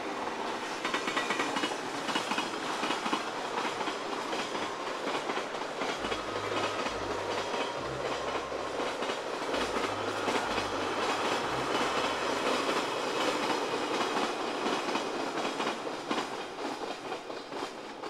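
Freight train of container wagons hauled by a JR Freight EF510 electric locomotive passing, with a steady rumble and wheels clacking rhythmically over the rail joints. It fades away near the end.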